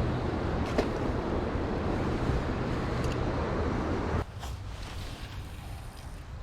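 Steady rushing noise of water falling over a small spillway, with wind on the microphone, dropping suddenly to a quieter hiss about four seconds in.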